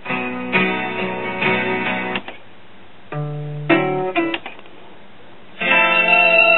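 Recorded guitar music played from a CD through a small single-tube-per-channel amplifier and bookshelf speakers, in short snippets that cut off twice and restart a moment later as the player jumps from track to track.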